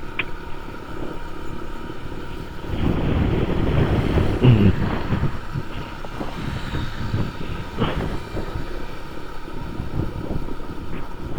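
Wind rushing over the microphone of a moving motorcycle, with road and engine noise beneath it; the rush swells for a couple of seconds about three seconds in.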